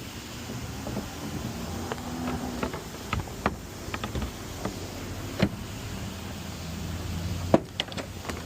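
Scattered light clicks and knocks of a locksmith's lockout tools working at a locked car's door, about ten at irregular intervals with the sharpest near the end, over a steady low hum.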